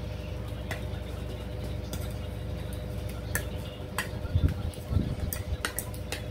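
Fork and spoon clinking and scraping on a plate in short, scattered taps while food is cut and scooped, over a steady background hum. A few dull low thumps come around four to five seconds in and are the loudest sounds.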